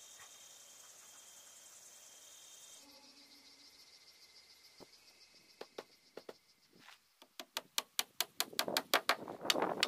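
Crickets chirping steadily for most of the first seven seconds. Then a hand hammer drives nails into wooden cladding boards: a quick run of sharp blows, several a second, growing louder near the end.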